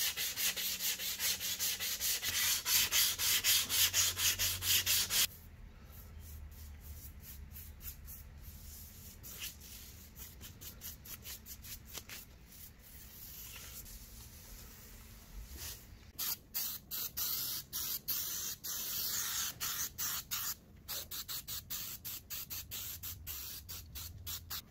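Sandpaper rubbing back and forth on the edge of a thin laser-cut wooden ring in rapid, regular strokes, loudest for the first five seconds. Softer brushing strokes follow, with a louder hiss for a few seconds later on.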